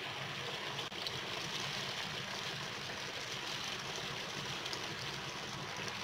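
Spring-roll-wrapped parcels deep-frying in hot oil in a wok, the oil sizzling steadily with faint crackles, over a low steady hum.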